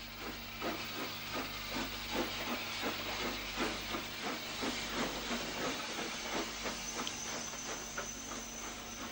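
NCC 2-6-0 Mogul steam locomotive getting a train under way: steady exhaust beats, about three a second, over a continuous hiss of steam.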